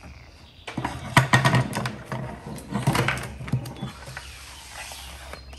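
Electrical cords and a plastic thermostat unit handled and pulled across a wooden tabletop: a quick run of clicks, knocks and rustling, then a softer sliding hiss near the end.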